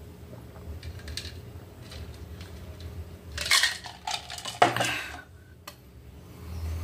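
Faint gulps of a drink from a plastic cup, then two short, loud clattering knocks of tableware on the table a little past halfway, the first as the cup is set down.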